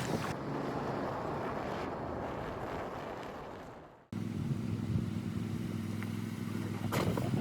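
A rushing, wind-like noise fades away about four seconds in. Then a Jeep's engine comes in abruptly, running steadily with a low hum.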